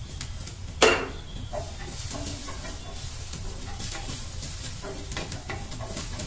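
Pasta frying in a pan on a gas burner, stirred and scraped with a wooden spatula in small scattered clicks over a low steady burner noise. About a second in there is one sharp, loud clatter, the loudest sound.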